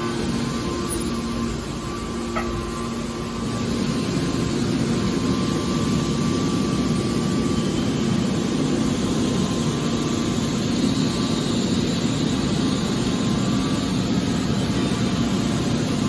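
Hydraulic scrap metal baler running: a steady mechanical drone with a constant hum.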